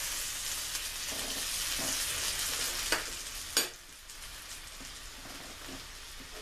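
Raw pork chops sizzling in melting butter in a nonstick frying pan, a steady hiss. Two sharp clicks come about three seconds in, after which the sizzle is quieter.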